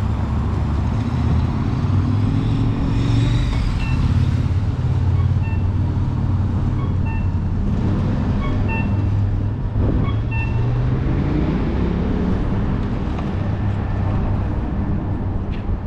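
Downtown intersection traffic: car and truck engines and tyres making a steady low rumble, with one vehicle accelerating, its engine note rising, about ten seconds in. Short high electronic beeps repeat about every second and a half in the middle.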